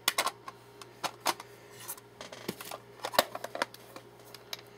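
Light clicks and taps of a makeup palette being closed and handled, a scattering of small knocks about a second apart.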